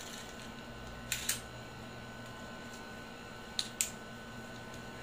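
Two pairs of short, sharp plastic clicks about two and a half seconds apart, from Beyblade spinning-top parts and a launcher being handled and fitted together while the next battle is readied.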